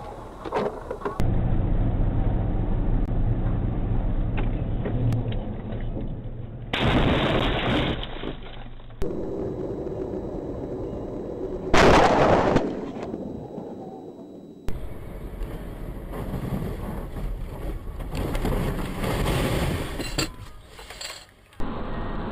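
Dashcam recordings of car crashes cut one after another: steady engine and road rumble inside the cars, broken by sudden loud impact bangs about seven and twelve seconds in.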